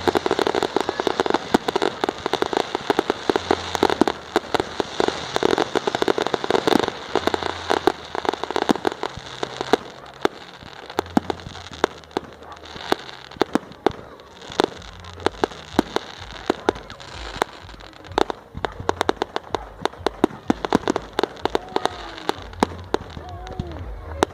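Fireworks display: a dense, rapid crackle of many small bangs for the first ten seconds or so, thinning out into sparser separate bangs.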